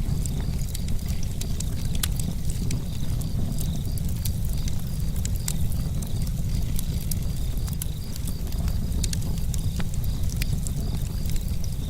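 Campfire crackling, with many sharp, irregular pops and snaps over a steady low rumble.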